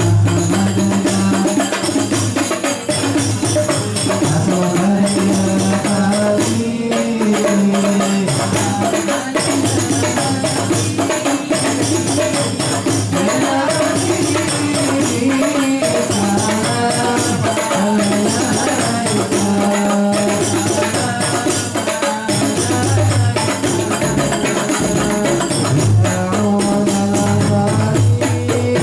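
Ensemble of rebana hand frame drums beating a fast, steady rhythm, with a man's voice singing over them.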